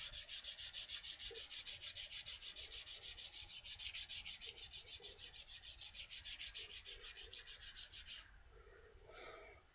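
Stanley #64 spokeshave's steel blade rubbed back and forth on sandpaper in fast, even strokes, several a second, flattening the back of the blade; the strokes stop suddenly about eight seconds in.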